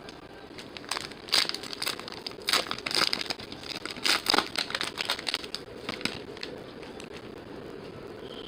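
Foil or plastic trading-card pack wrappers crinkling as packs are handled and torn open, in a run of irregular crackly rustles from about a second in until about six and a half seconds.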